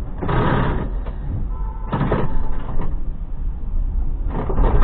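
Tram running, heard from its cab as a steady low rumble. Three short rushing noises break through: about half a second in, about two seconds in, and near the end.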